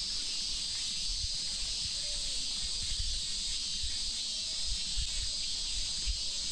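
Steady, dense chorus of summer cicadas, a continuous high shrill hiss with no breaks, over irregular low thumps of footsteps.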